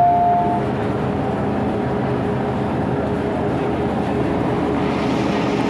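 An alternating two-tone door-closing chime ends about half a second in. It gives way to the steady running rumble heard inside a carriage of an MTR Island Line M-Train.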